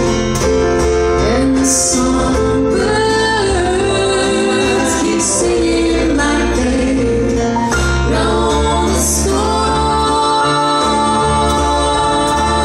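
Live band performance: a woman singing a slow melody into a microphone over acoustic guitar, bass and drums.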